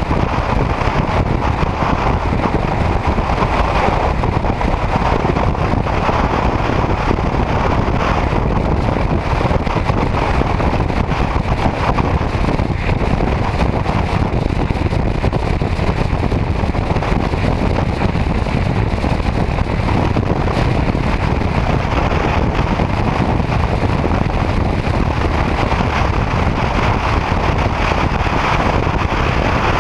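Steady wind rush and road noise from a motorcycle cruising at highway speed, with wind buffeting the microphone.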